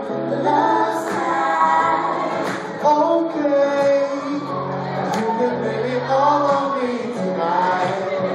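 Live soul band with singers performing: sung voices, held and gliding, over steady sustained bass notes.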